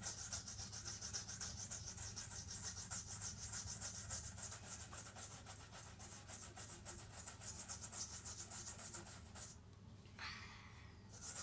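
A brush scrubbed quickly back and forth over a leather football, a steady scratching of quick, even strokes that breaks off briefly near the end.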